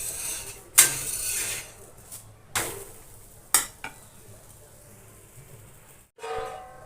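Dhapate flatbread cooking on a hot griddle with a faint sizzle, and a spatula scraping and knocking against the griddle a few times.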